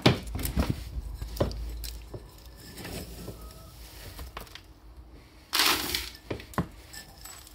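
A mug scooping dry grain feed from a plastic bin, with scattered clinks and rustles, then pouring it into a plastic bucket in a brief rush of grain about five and a half seconds in.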